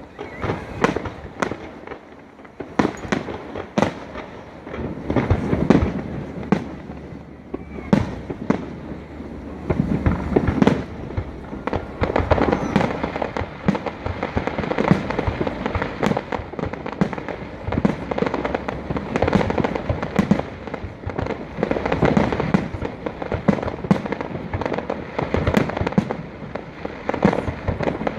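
Fireworks display: shells bursting in quick succession, a dense run of sharp bangs and booms that overlap into a continuous barrage.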